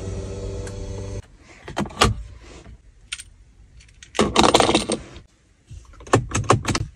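A small electric motor hums and stops about a second in. A key fob jangles as it is set down into the centre console cubby, and near the end the gear shifter gives a quick run of clicks as it is moved.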